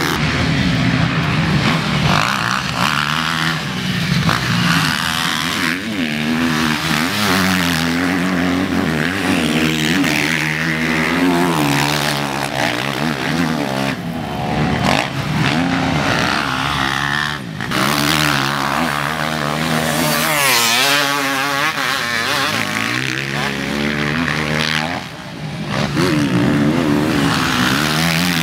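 Motocross dirt bikes racing on a dirt track, their engines revving up and down through the gears so the pitch rises and falls continually, with a few abrupt jumps in the sound.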